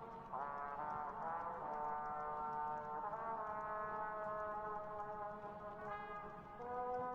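Background music of slow, held chords, moving to new notes about a third of a second in, around three seconds in, and again near the end.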